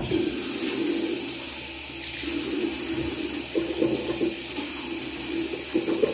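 Bathroom tap running water into the basin in a steady stream.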